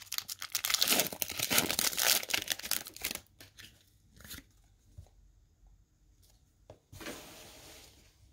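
Pokémon booster pack's foil wrapper crinkling and tearing open for about the first three seconds, then a few light handling clicks and a short soft rustle about seven seconds in.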